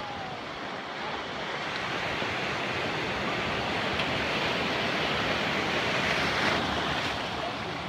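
Small ocean waves breaking and whitewater rushing through shallow surf, swelling louder midway as a wave rolls past and easing off near the end.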